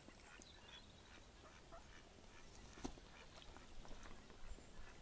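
Mallard ducks moving about on the water: faint splashing and soft duck calls, with one sharper tick about three seconds in.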